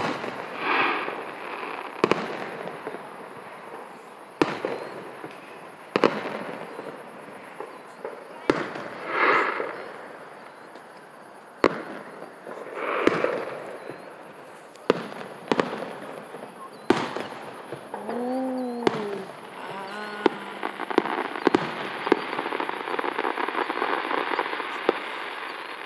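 Fireworks display: sharp booms of aerial shells bursting every one to three seconds, several trailed by a hissing rush about a second long.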